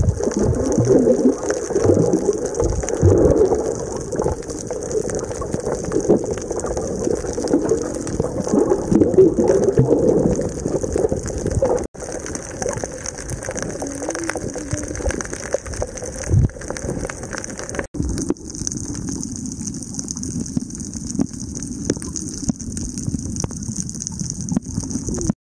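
Underwater sound picked up by a camera held below the surface: muffled rushing and sloshing of water with a steady hiss. It is louder for the first twelve seconds and breaks off briefly twice, about 12 and 18 seconds in.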